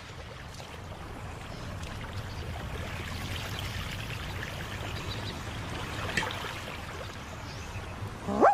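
Water pouring and streaming steadily from a leak, slowly growing louder, as a cartoon sound effect.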